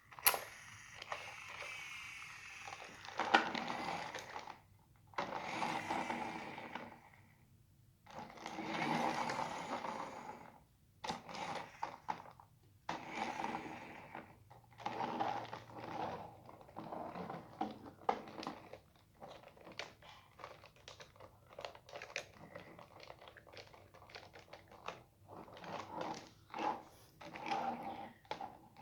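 Plastic toy excavator being handled and played with: bursts of plastic clattering and rattling that stop and start every second or two.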